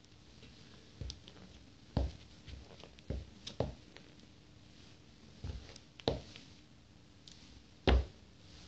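Rubber-soled Nike Air Force 1 sneakers stepping and tapping on a wooden floor: a series of separate short thuds, the loudest about two seconds in and near the end.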